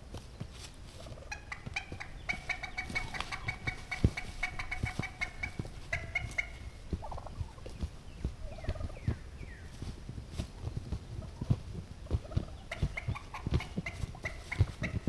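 Wild turkey gobblers attacking an Avian-X Jake decoy: long, rapid rattling calls twice, over scuffling in dry leaves and repeated thumps of wings and blows on the decoy. The hardest thump comes about four seconds in.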